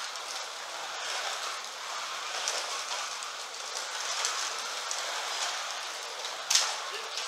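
Carrera Digital 1/32 scale slot cars running laps on the plastic track, giving a steady hiss, with one sharp click about six and a half seconds in.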